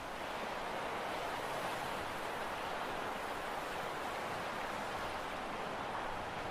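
Steady outdoor rushing noise of wind and sea, with no distinct engine tone, horn or other event standing out.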